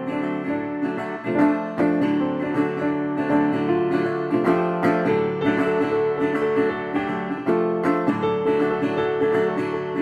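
Instrumental background music of plucked strings, led by acoustic guitar, with a run of notes picked one after another.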